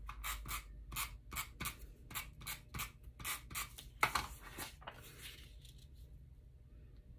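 Repositionable tape runner laying short dabs of adhesive on the back of a paper card, a quick series of strokes about three a second that stops about five seconds in. After that, only faint paper handling.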